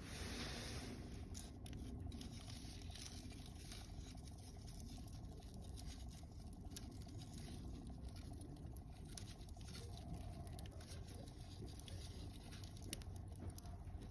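Wood fire of mixed conifer and broadleaf logs burning, with frequent small irregular crackles and pops over a steady low rumble.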